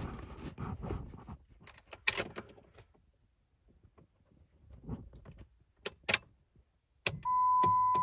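A few clicks and rattles of the key and controls in a 2001 Jeep Grand Cherokee, then, about seven seconds in, a click as the ignition is switched on and a steady high dashboard warning tone begins. The engine is not cranked.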